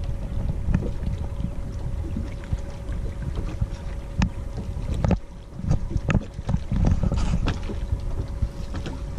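Wind buffeting the microphone over water lapping against a bass boat's hull, with a faint steady hum and a few small sharp knocks.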